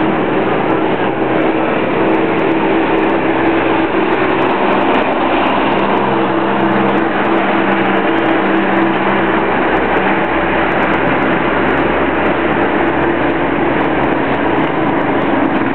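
An engine running steadily under a constant noise, with a low hum that holds without pauses.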